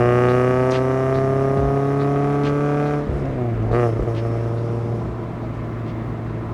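Subaru BRZ's FA20 flat-four breathing through SARD individual throttle bodies, accelerating under load with its pitch climbing steadily for about three seconds. About three seconds in the revs drop abruptly, as at a lift-off or gear change, and the engine runs on at lower revs.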